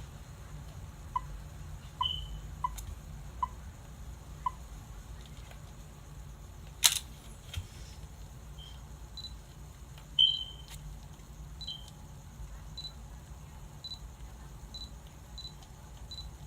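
Canon EOS 200D (Rebel SL2) DSLR beeping, the touch-screen and focus-confirmation beeps: short electronic beeps repeated many times, lower-pitched ones in the first few seconds and higher ones after that. One loud sharp click comes about seven seconds in, followed by a fainter one.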